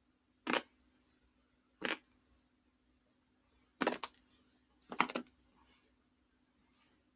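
Dry uncooked pasta snapping and crunching between the teeth: four short crackling bursts, the last two longer with several cracks each. The crunch is a fake of neck bones cracking.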